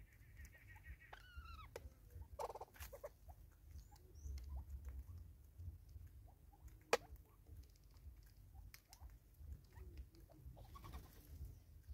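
Southern red-billed hornbills and Natal spurfowl pecking seed on a wooden stump and at a plastic bottle feeder: faint scattered taps and clicks, with one sharp knock about seven seconds in. A short bird call with falling notes comes near the start, over a faint low rumble.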